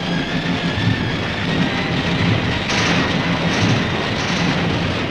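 Tank engine running with its tracks clattering and squealing in a continuous low rumble, with a few short bursts of harsher noise from about three seconds in.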